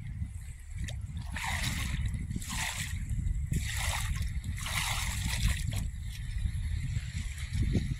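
Shallow seawater splashing and sloshing: four or five short splashes about a second apart, over a steady low rumble.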